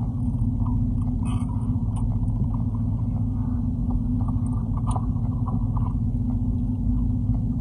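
Steady low rumble and hum of a car heard from inside the cabin, with a few faint clicks.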